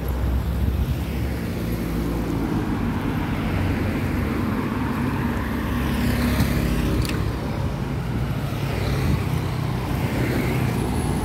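Street traffic: cars and motorbikes driving past on a road, their engines running steadily.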